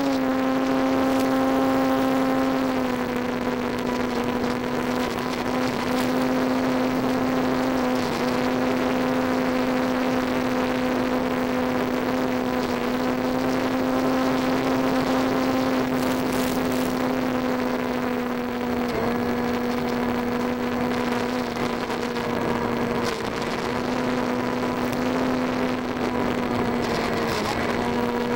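Electric motor and pusher propeller of an EasyStar foam RC plane in flight, heard from on board: a steady buzzing whine over rushing air. The pitch dips briefly a few times.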